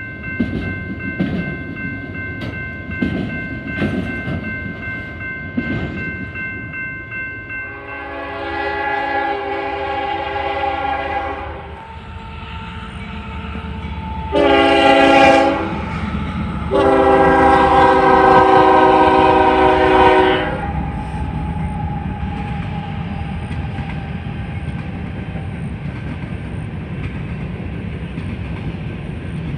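Diesel locomotive air horn sounding a chord in three blasts, long, short, long, over the steady rumble of a train. Before the horn, a repeated ringing with about two strikes a second stops about seven seconds in.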